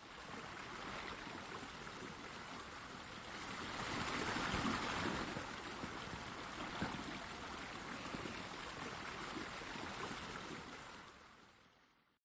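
A steady rush of noise like running water, swelling slightly about four seconds in and fading out near the end.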